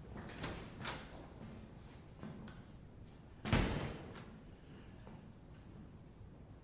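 A few soft steps, then a door shutting with a thud about three and a half seconds in.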